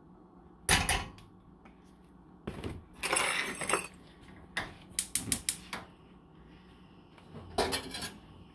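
Metal kitchen clatter: a spoon clinking in a small stainless-steel saucepan and utensils knocking on a gas stovetop, in several short bursts of sharp clicks and clinks.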